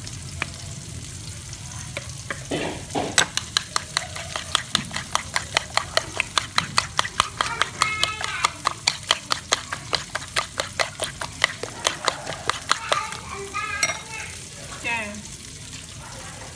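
A spoon beating eggs with chopped scallions and garlic in a bowl, clicking against the bowl about four times a second. The beating starts about three seconds in and stops a few seconds before the end.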